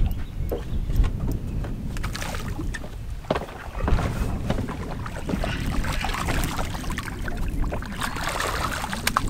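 Wind buffeting the microphone over a low rumble, with a hooked bass splashing and thrashing at the water's surface in the second half. A few sharp clicks near the start.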